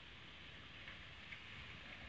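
Near silence: faint, steady outdoor ambience, an even hiss with a few faint ticks.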